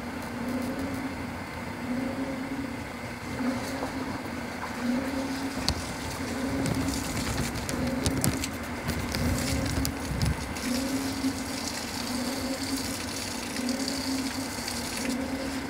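Low mechanical hum that swells and fades about once a second, with scattered low thumps and clicks.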